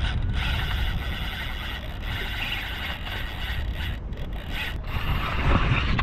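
Spinning reel being cranked, its gears whirring steadily with a rasping sound, over low wind rumble on the microphone; the whir briefly drops out twice near the end.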